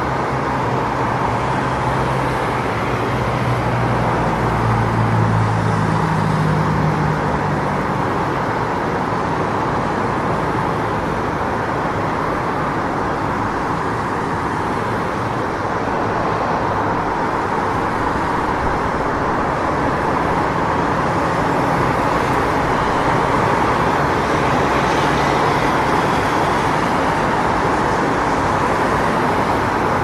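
City street traffic noise: a steady wash of passing motor vehicles and tyres on the road. A low engine drone stands out for the first several seconds, then fades back into the general traffic.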